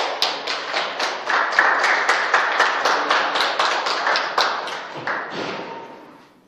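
A small group of people clapping, about five claps a second, dying away about five seconds in.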